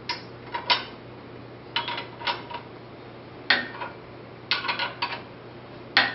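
Steel wrenches clinking on the top bolt of a pipe flange clamp as it is snugged up: short clusters of ringing metallic clicks, one every second or so.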